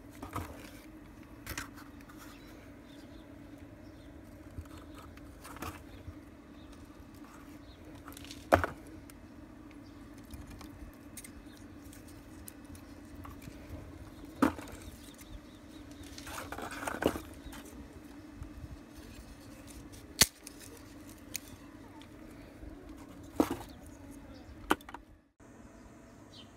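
Scattered sharp knocks and rustles of cardboard sheets being dropped into a clay tandoor and poked down with a stick, over a steady low hum. The sharpest knock comes about eight seconds in, and there is a longer rustle a little past the middle.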